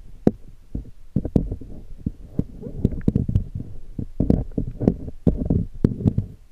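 Muffled underwater rumbling and irregular low thumps picked up by a submerged camera, with scattered sharp clicks throughout.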